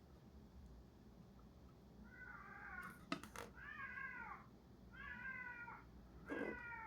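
Domestic cat meowing four times, each call under a second with a pitch that arches and falls, starting about two seconds in. A couple of short clicks come between the first two meows.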